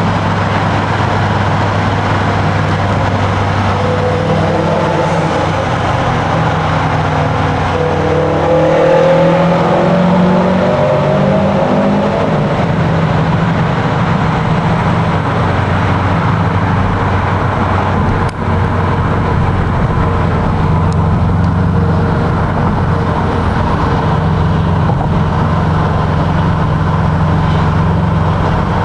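Subaru Legacy Spec B's turbocharged flat-four engine driven through a tunnel. It runs steadily, revs up with a rising pitch from a few seconds in until about halfway, dips briefly, then runs on steadily.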